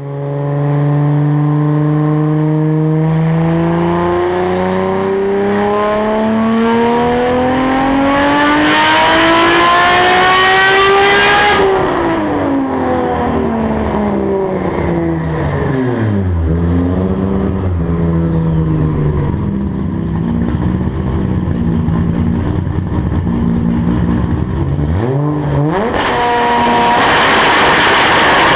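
Turbocharged, built 1995 Toyota Supra 2JZ straight-six making a full-throttle chassis-dyno pull on a mild 93-octane, 17 psi tune, its revs climbing steadily for about eight seconds before it lets off and the revs fall and waver. Near the end it revs again and a loud blast comes out of the 5-inch aluminum exhaust as the anti-lag system fires, throwing a flame.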